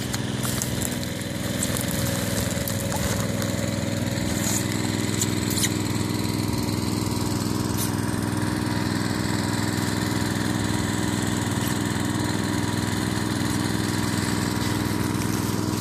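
Small engine of a 3-inch water pump running steadily at low throttle while it fills the tube.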